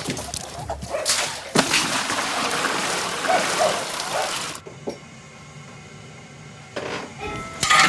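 Water running and splashing, stopping abruptly about halfway through; a few sharp knocks near the end.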